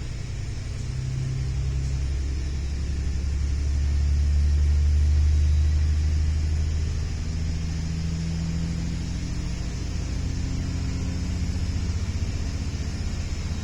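Low, steady rumble of a passenger train heard from inside a carriage while it runs along the line, swelling a little partway through.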